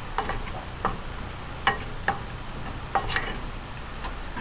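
Wooden spoon stirring raspberries and sugar in a small metal saucepan, tapping against the pan's side about six times at an uneven pace, over a faint steady hiss as the fruit cooks down into a sauce.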